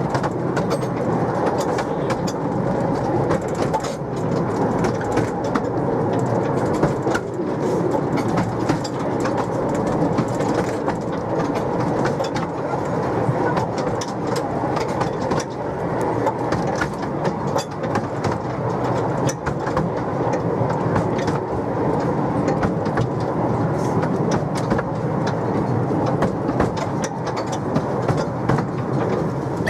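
Miniature railway train running along the track, its wheels clattering over the rails with many irregular clicks.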